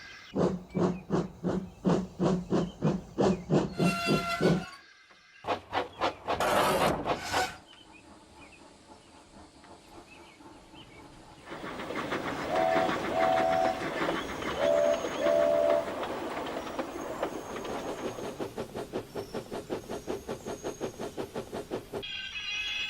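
Steam locomotive working: steady exhaust chuffs at about three a second, a brief break, then a burst of chuffs and steam hiss. After a quieter stretch the chuffing picks up fast, and the whistle gives two short double toots partway through.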